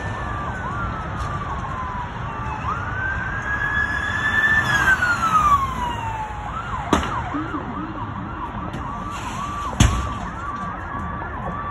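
Emergency vehicle siren on a wail, falling, rising and falling again, then switching to a fast yelp about halfway through, over steady road traffic noise. Two sharp bangs stand out, one about two-thirds of the way in and a louder one near the end.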